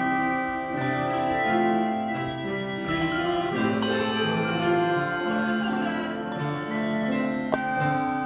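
Handbell choir playing a piece together: struck bells ringing, their notes overlapping and sustaining as the tune moves on.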